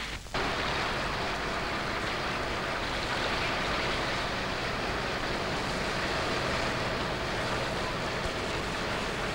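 Steady rushing noise of a ferry under way, with a low hum under it, starting after a brief gap at the very beginning.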